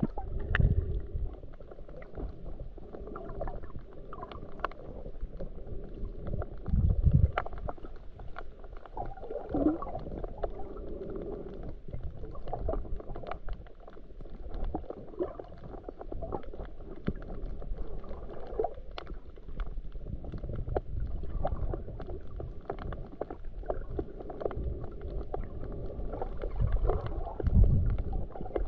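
Muffled underwater sound picked up by a GoPro held below the surface: a low rumble of moving water with scattered faint clicks, and three heavier low thumps, one just after the start, one about a quarter of the way in, and one near the end.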